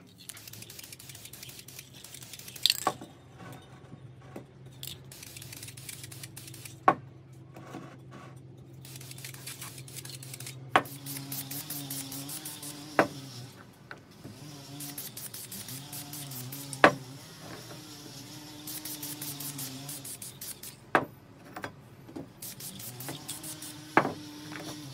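Aerosol spray paint can hissing in short bursts as a silver coat goes onto an aluminium drill gear housing, with sharp clicks and knocks every few seconds. Near the start, masking tape is peeled and pressed onto the housing.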